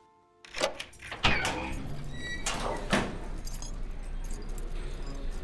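Keys jangling and a door being worked, with several sharp clanks and knocks in the first three seconds, then a steady low hum of room tone.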